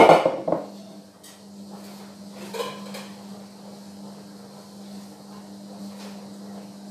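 Dishes clattering loudly as one is set down on the kitchen counter, with a second knock half a second later. A steady low hum follows, with a lighter clink of a dish a few seconds in.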